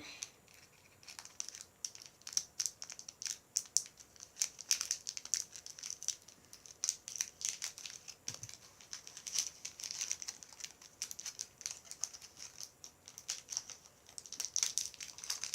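Plastic packaging crinkling and crackling as it is handled and pulled open, a dense, irregular run of sharp crackles.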